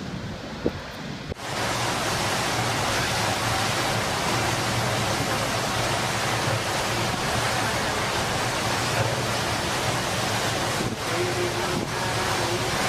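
Steady loud rushing noise of a storm, wind and churning water, which starts abruptly about a second in.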